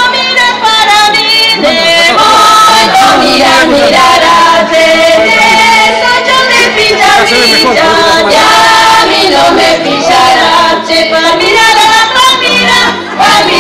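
A group of voices, mostly women, singing a lively folk song together, with a percussive beat.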